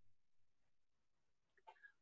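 Near silence: a pause in a video call's audio, with only faint line noise.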